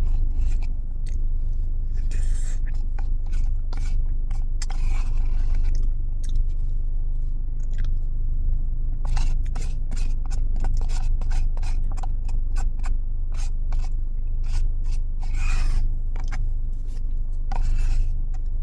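Spoon scraping and clicking against the bottom of a dessert cup while digging out the last of a biscuit-and-caramel dessert, with some chewing, over a steady low hum.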